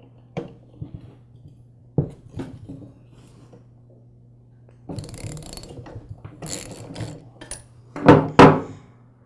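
Socket wrench loosening the steel clamp bolt that holds the connecting rod on the eccentric of an oilless air compressor pump: scattered metal clicks, then a few seconds of ratcheting rattle, with two loud metal clunks near the end.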